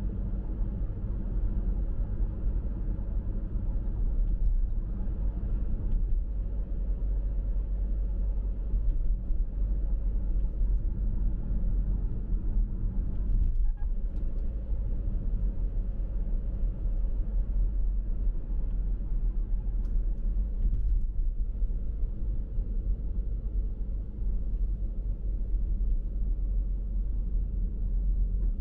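A car driving along the road: steady low rumble of road and engine noise.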